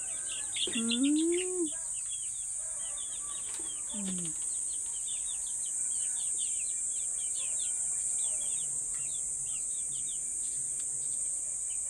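Young chicks peeping: many short, high, falling peeps, several a second, over a steady high hiss. Two lower drawn-out calls come about a second in and again around four seconds in.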